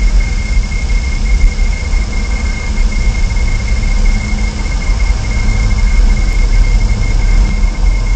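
Loud, steady low rumble and hiss from the nest camera's live audio feed, with a constant high-pitched whine running through it.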